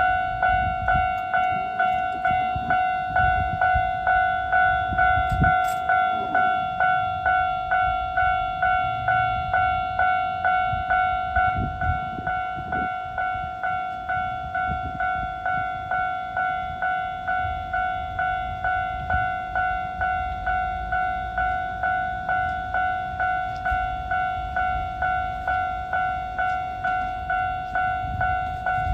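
Japanese level-crossing warning bell ringing, an electronic ding repeated evenly just under twice a second at one pitch: the crossing is closed for an approaching train.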